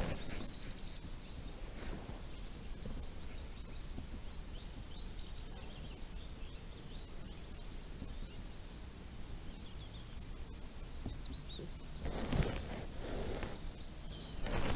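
Outdoor ambience: small birds chirping now and then over a steady low background noise, with a short rustle about twelve seconds in.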